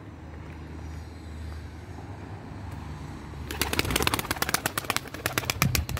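Tumbler pigeon's wings beating as it takes flight close by: a rapid run of sharp wing claps starting about three and a half seconds in, over a low steady background hum.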